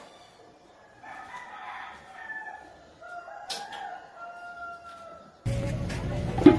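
A rooster crowing, two long calls with held, falling tones. Near the end the sound switches suddenly to a much louder steady rumble with a sharp knock.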